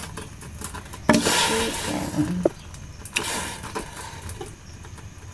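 Pieces of roasted chicken dropped into water in a stainless steel pot: a knock and a splash about a second in, and a second, shorter knock and splash about three seconds in.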